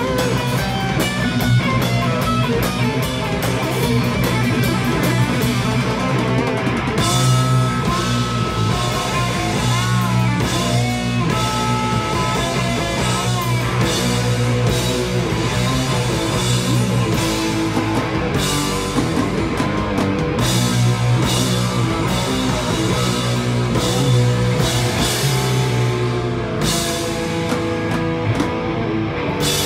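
Live rock band playing: electric guitars, bass guitar and drum kit, with the cymbals coming in louder a few seconds in.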